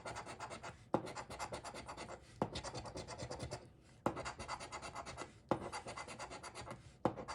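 Rapid back-and-forth scratching on the coating of a paper scratch-off lottery ticket, about eight strokes a second. The strokes come in runs of about a second and a half, each starting with a sharp tap, with a brief pause in the middle.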